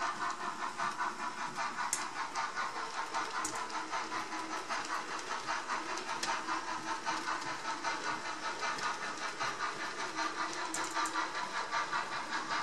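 Model steam train with passenger cars running along the track, a steady mechanical running sound with an even rhythmic pulse several times a second.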